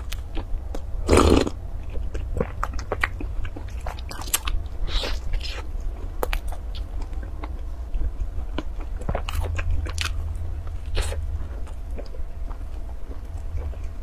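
Close-miked chewing of a flaky pastry bun with a creamy filling: soft crunches and wet mouth clicks throughout. There is one louder thump about a second in.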